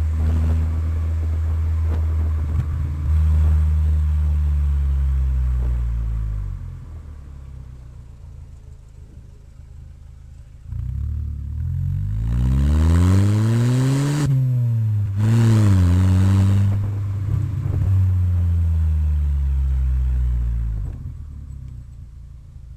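Chevrolet Vectra engine revving through its exhaust with a deep rumble: two sharp revs rise and fall about halfway through, between stretches of lower running, and the sound fades near the end.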